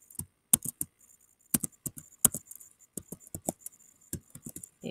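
Computer keys being typed, an irregular run of short, sharp clicks as numbers are entered.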